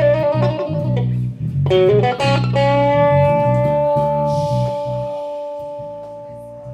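Electric guitar solo over a bass guitar line in a blues-rock duo: a quick run of picked notes, then one long sustained note held for about four seconds and slowly fading.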